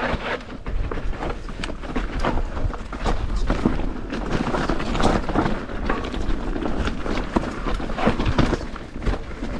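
Evil Insurgent mountain bike descending a steep, loose dirt trail: tyres crunching and sliding on the loose surface, with many quick knocks and rattles from the bike over the rough ground.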